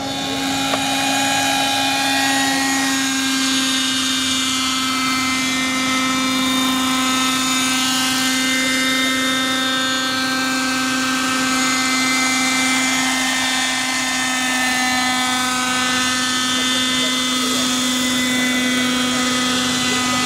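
Hirobo Jetranger radio-controlled model helicopter running, its small engine and rotor giving a steady, high-pitched whine that holds an even pitch.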